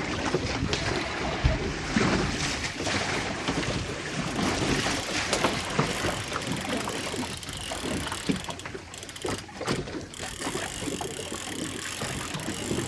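Wind buffeting the microphone over the sound of an anchored boat rocking on the sea swell, with knocks and rattles of handling.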